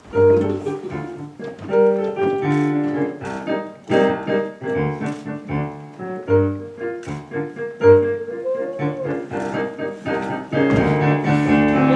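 Live acoustic piano playing a rhythmic tune of chords over low bass notes.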